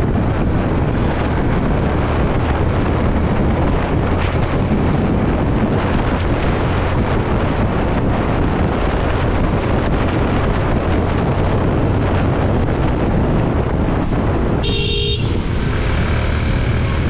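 Motorcycle engine running at road speed under steady wind rush on the camera microphone. About fifteen seconds in, a short pitched tone sounds briefly.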